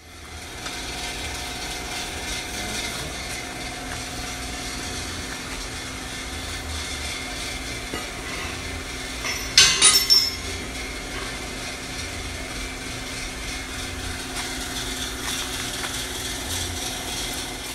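A steady mechanical hum runs throughout; about ten seconds in, steel bar clanks briefly in a short metallic clatter.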